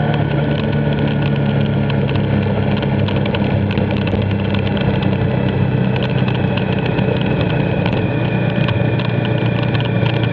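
Motorcycle engine running steadily at cruising speed, mixed with wind and wet-road tyre noise.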